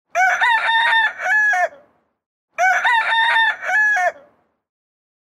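A rooster crowing twice, the same cock-a-doodle-doo repeated about two and a half seconds apart, each crow about a second and a half long.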